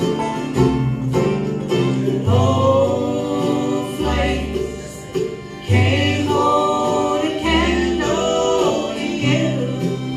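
Acoustic bluegrass band playing: fiddle, mandolin, banjo, guitar and upright bass. Sustained, wavering melody notes ride over plucked strings, with the bass changing note about once a second.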